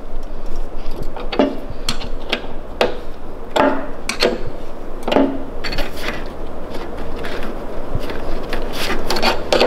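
Irregular metal clinks and knocks of a wrench working the brake line fitting on a go-kart's hydraulic master cylinder, as the line is cracked loose and snugged back up to bleed air out of the brakes.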